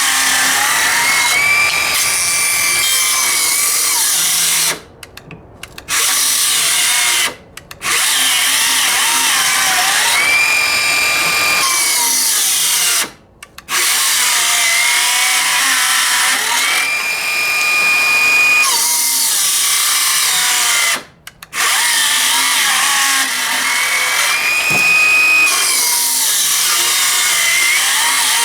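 DeWalt 12V XTREME brushless circular saw cutting slowly through 2x4s on a knockoff battery that lacks power. Its motor whine climbs to full speed, then sags and wavers as the blade bites. The saw stops briefly four times.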